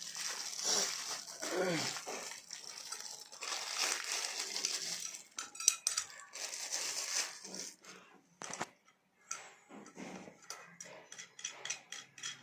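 Small metal and plastic parts of a soldering iron kit being handled: clinks and taps with rustling, and a quick run of clicks near the end.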